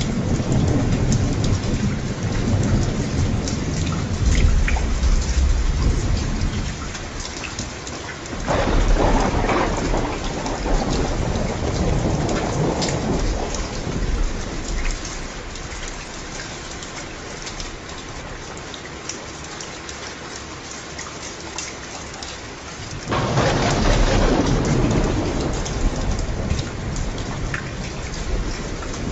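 Steady heavy rain with thunder. A low rumble rolls through the first few seconds, then two sudden loud thunder peals break, one about a third of the way in and one near the end, each fading into the rain.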